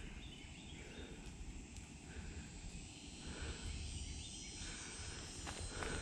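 Faint woodland ambience: a steady high insect hum, with a soft call repeating about once a second over a low rumble, and a few light rustles near the end.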